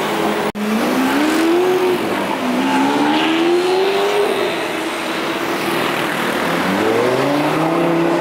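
Lamborghini Gallardo's V10 engine accelerating hard, its pitch rising through one gear, dropping at the shift and climbing again through the next. It eases off, then another run of rising revs comes near the end.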